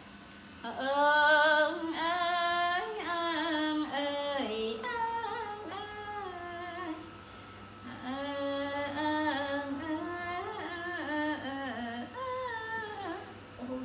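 A woman's voice singing a slow melody in two long phrases, with a short break about halfway.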